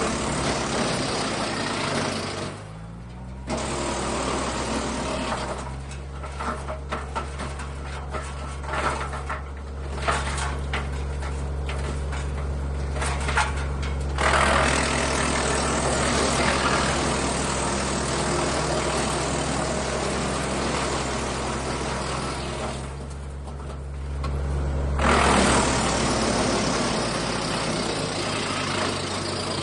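Frontier DH8 tractor-driven wood chipper chipping wood, its knives and feed roll grinding through the material while the tractor engine hums steadily under load. There are short lulls in the grinding about three seconds in and again near twenty-four seconds.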